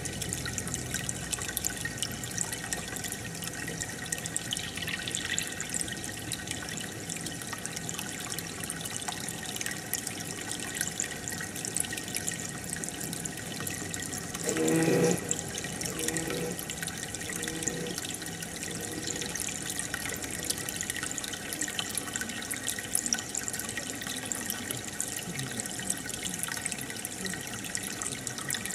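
Steady running and dripping water in a fish tank. About halfway through comes a brief, louder sound lasting about a second.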